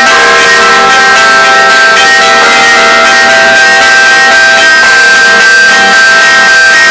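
Several church bells of an Orthodox cathedral rung together in a continuous peal, loud: bells struck in quick succession, their tones overlapping and ringing on.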